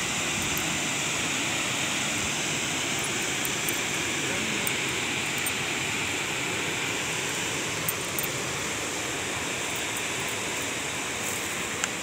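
Steady rushing of a waterfall, water pouring over rocks.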